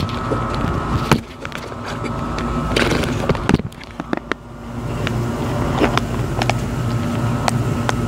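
Air conditioner condensing unit running: a steady mechanical hum with a constant tone, broken by a few sharp clicks and knocks in the first half, the hum growing stronger about halfway through.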